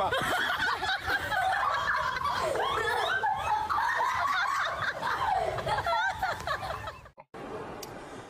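People laughing loudly and heartily, cutting off suddenly about seven seconds in.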